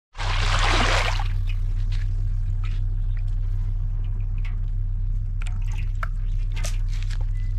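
Water splashing for about a second, then scattered wet squelches, drips and small knocks over a steady low hum.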